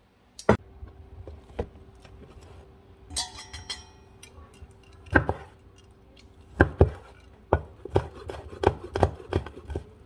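Kitchen work: a series of sharp knocks and clinks of utensils, more frequent in the second half, with a short ringing clink about three seconds in. A faint steady hum runs underneath.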